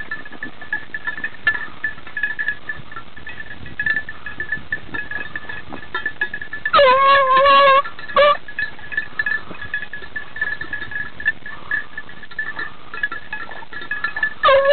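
Beagle baying on a hare's trail: one long held bay that drops into a steady note about seven seconds in, a short bay just after, and another starting at the very end. Between the bays, light clicking and rustling of scrub and a faint steady high whine.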